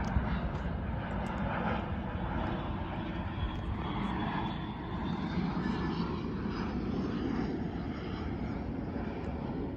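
Jet engines of a Boeing 747 airliner passing: a steady rush of engine noise with a faint high whine above it.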